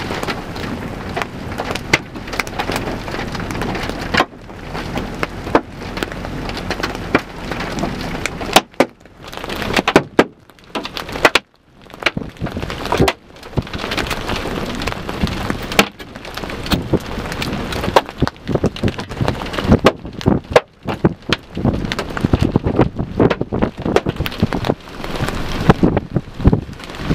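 Rain and gusty wind in a thunderstorm, with frequent sharp taps of drops striking the microphone. A low steady hum runs underneath for the first eight seconds or so, then stops suddenly.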